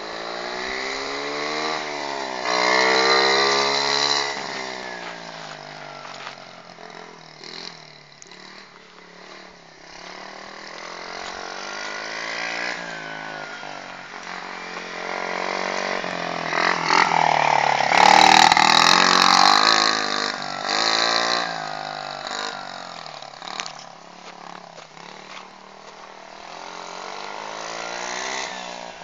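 50 cc dirt pit bike's small single-cylinder engine revving up and falling back again and again as it is ridden round a dirt track through the gears. It is loudest a few seconds in and again past the middle.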